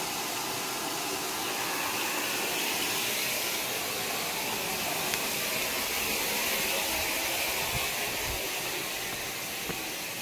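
Steady rushing hiss of running water.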